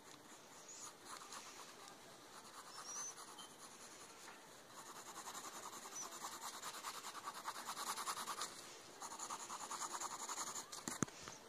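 Pencil lead scratching on lined notebook paper as lines are drawn, faint and in several spells of a few seconds each.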